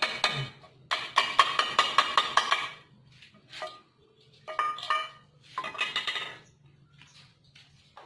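Homemade microwave-oven-transformer arc welder striking and holding an arc in several bursts of rapid crackling, with the transformer's low hum running between them. The crackling dies away about six seconds in, and the hum fades soon after.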